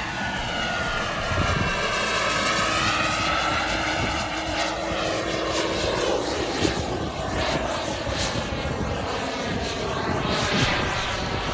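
Small gas-turbine engine of an RC model jet flying past: a steady rushing whine whose pitch sweeps and shifts as the jet moves by.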